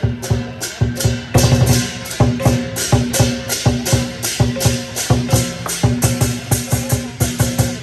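Lion dance percussion: a large drum beaten in a fast, driving rhythm with cymbals clashing along with it, several strikes a second.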